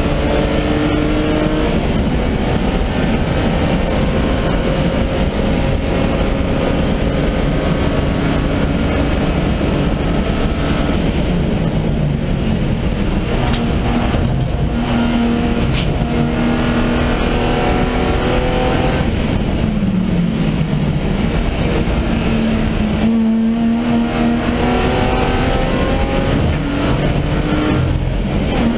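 BMW E36 325i Group N race car's straight-six engine, heard from inside the cabin, running hard at high revs, its pitch rising and falling through several gear changes in the second half.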